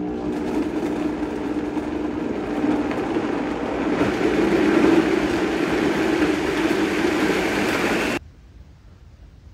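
Vitamix blender motor and blades churning a thick load of frozen fruit into a smoothie, switched on at low speed while a tamper pushes the fruit down. It grows louder about four seconds in, runs steadily with a low hum, then cuts off suddenly about eight seconds in.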